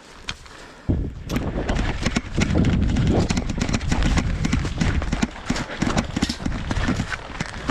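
A person running: quick, irregular footfalls, with deep rumble and knocking from a body-worn microphone jostling, starting about a second in.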